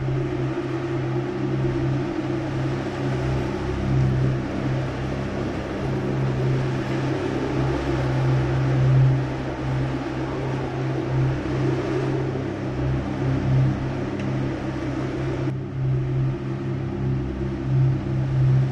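Strong wind blowing, a steady low hum and howl under a rushing hiss; the hiss drops away suddenly near the end.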